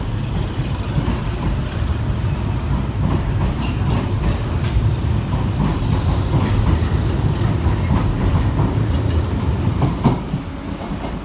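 Hanshin 5001-series commuter train pulling out and passing close by: a steady low running rumble with the wheels clicking over rail joints. It builds slightly, then drops off about ten seconds in as the last car passes.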